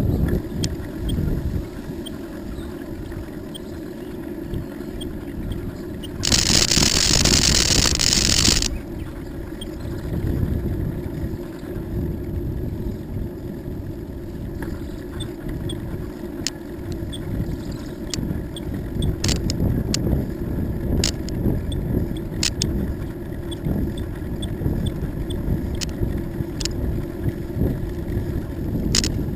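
Wind buffeting the microphone of a camera on a moving bicycle, a steady low rumble, with a loud hiss of about two seconds a quarter of the way in. Scattered sharp ticks and clicks in the second half.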